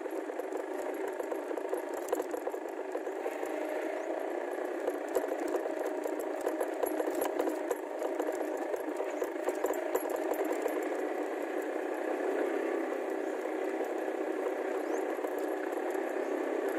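Motorcycle rattling and clattering continuously as it rides over a bumpy dirt track, with many short knocks from the jolts and the engine running underneath.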